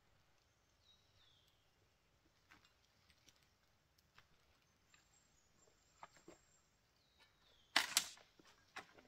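Footsteps crunching and rustling through dry leaf litter and twigs, scattered and irregular, with a loud rustling crunch near the end. A small bird chirps twice, a short falling call each time.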